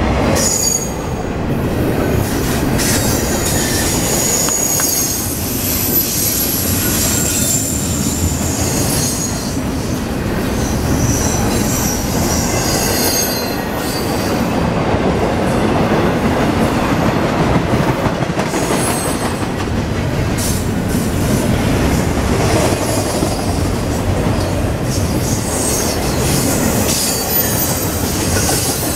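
Double-stack intermodal freight train of articulated well cars rolling past close by at speed: a steady loud rumble and clatter of wheels on the rails, with high-pitched wheel squeals that come and go.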